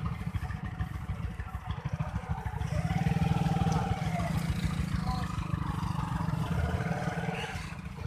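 Motorcycle engine running close by, its note rising and falling about three seconds in as it is revved.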